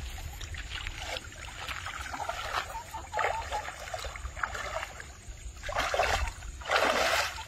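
Water sloshing and splashing around a person wading waist-deep through a muddy canal, in a series of irregular surges with the loudest two near the end.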